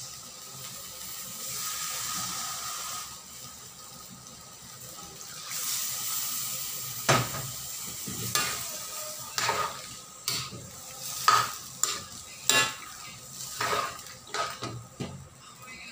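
Pork igado sizzling in a wok. From about seven seconds in, a spatula stirs the stew with a run of sharp scrapes and clinks against the wok.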